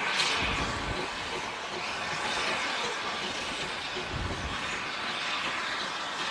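Steam locomotive 'Guinness' 3BG working along the line some distance off, a steady hiss and rush of steam and running noise. Two short low rumbles come through, about half a second in and again at about four seconds.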